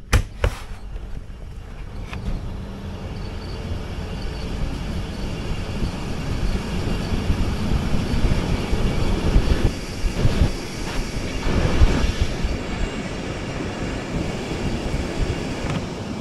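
Passenger train pulling away from a stop and gathering speed, heard from aboard. The rumble builds over the first several seconds. There are a couple of sharp knocks at the very start and a few louder clunks about two thirds of the way in.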